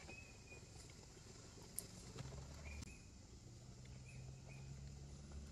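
Near silence with faint short bird chirps a few times over a low steady hum, and a light click about two seconds in.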